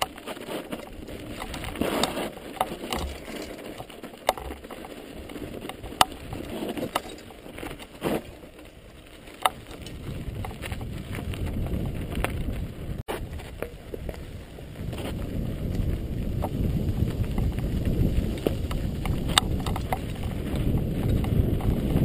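Mountain bike rolling down a rocky dirt trail, heard from a helmet-mounted camera: tyres running over gravel with scattered clicks and knocks as it bumps along, and a low wind rumble on the microphone that builds from about ten seconds in as the bike gathers speed.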